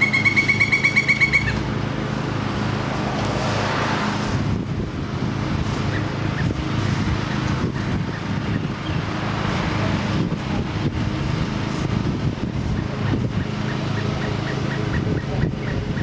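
Pileated woodpecker giving a quick series of loud, evenly spaced 'kuk' notes for about a second and a half at the start. A steady low rumble of road traffic runs underneath, with a few scattered faint knocks later.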